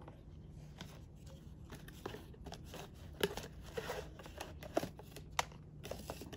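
Faint rustling of a cardboard box and light clicks and knocks of plastic parts as a solar LED floodlight and its panel are lifted out of the packaging, the sharpest knocks in the second half.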